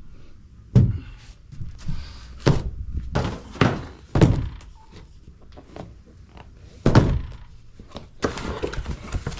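Tools and parts being handled during work on an ATV's front axle assembly: about five separate clunks and knocks, with rustling and handling noise between them.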